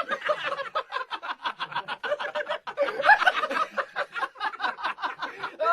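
A person laughing hard without a break, in rapid short pulses, cut off suddenly at the end.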